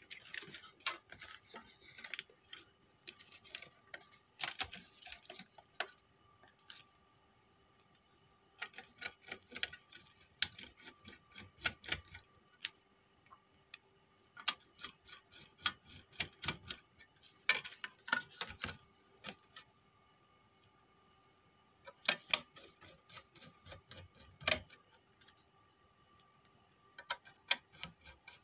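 Sheet-metal chassis and casing parts of a car stereo clicking, tapping and rattling as they are handled and fitted back together by hand, in irregular runs of small clicks with a few short pauses.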